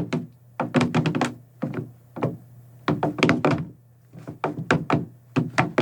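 A quick series of hollow knocks and thunks on a hard surface, performed as foley footsteps: about eighteen little steps in uneven clusters.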